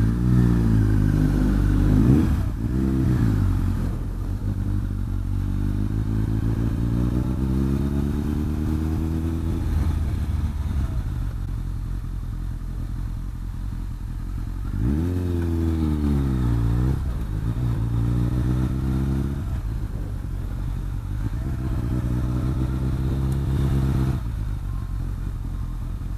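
Kawasaki ZRX1100's inline-four engine pulling away from a standstill and accelerating. Its pitch rises and falls several times as it revs through the gears, with steadier running between: a sharp rev about halfway through and another climb near the end.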